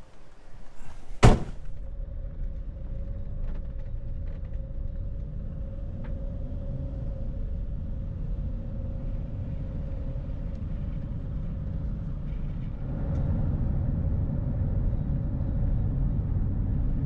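Van driving on a paved road: steady engine and tyre rumble with a faint steady whine, growing louder about thirteen seconds in as it picks up speed. A single sharp knock about a second in.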